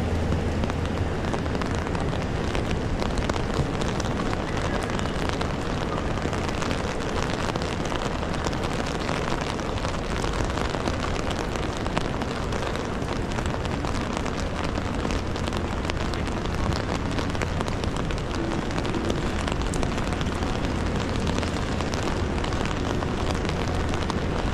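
Steady rain, a dense patter of sharp raindrop ticks, over a low, steady city traffic rumble.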